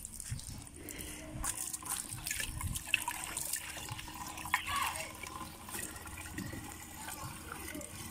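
Water pouring from a plastic bucket into the narrow neck of a plastic water jug, splashing irregularly as the jug fills.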